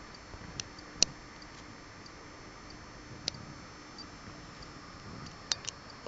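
A handful of short, sharp clicks scattered over a steady hiss: one about a second in is the loudest, another comes in the middle, and a quick pair comes near the end.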